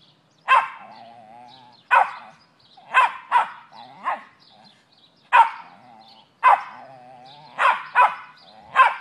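A West Highland white terrier, head raised, giving a run of about ten short, sharp barks roughly once a second, with a wavering moan between some of them.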